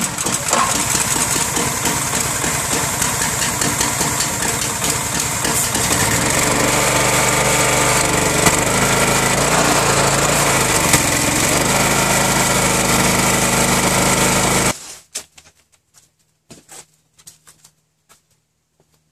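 A Honda gasoline engine on a Generac pressure washer catching at once when pull-started on choke and low throttle, then running steadily. About six seconds in its note changes, and it cuts off abruptly near the end, leaving a few faint clicks.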